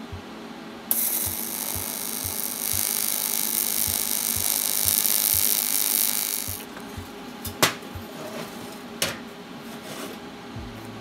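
AC TIG welding arc on cast aluminum: it strikes about a second in, gives a steady buzzing hiss for nearly six seconds while filler rod is fed into the weld, then cuts off. Two sharp clicks follow, about a second and a half apart.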